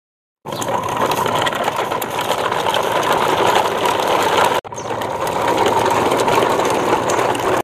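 Plastic toy truck and its string of trailers rolling over a dirt yard, the hard plastic wheels making a steady rattle. It starts about half a second in and breaks off for an instant near the middle before carrying on.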